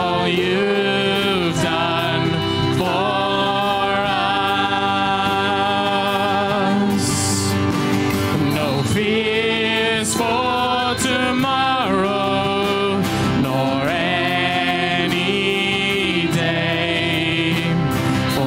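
Live worship band performing a contemporary Christian song: male and female voices singing together over acoustic guitars, electric guitar and violin.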